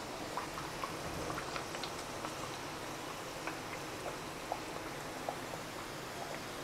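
Pork belly frying in hot oil in a pan: a steady sizzle with scattered crackles and pops.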